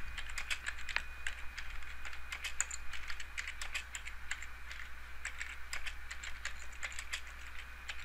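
Typing on a computer keyboard: a quick, irregular run of key clicks, over a faint steady low hum.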